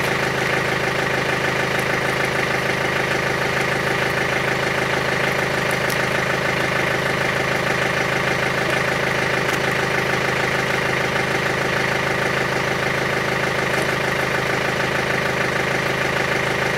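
Backhoe loader's diesel engine idling steadily. A few faint metal clicks come from parts being handled at the bucket linkage.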